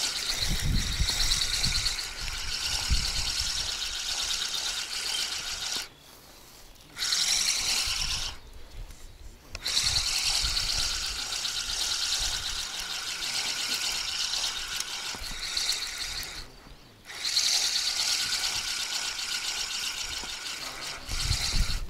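Fishing reel being cranked, its gears giving a steady ratcheting whir in spells with three short stops, as a small hooked carp is wound in.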